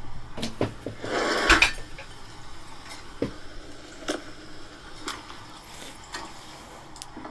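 Scattered small clicks and knocks of objects being handled, with a short louder rustle about a second in.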